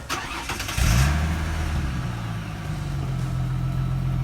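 A 2006 Ford Mustang's 4.0 V6 being started: a short crank, then it catches about a second in with a brief flare and settles into a steady idle. The exhaust is stock, with no whistle fitted.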